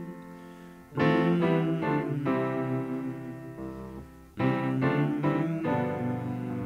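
Background piano music: slow chords struck about a second in and again a little after four seconds, each left to ring and fade.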